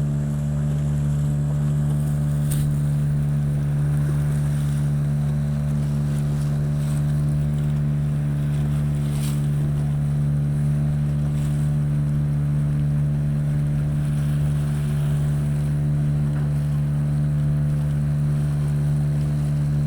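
Boat engine running at a steady, even drone.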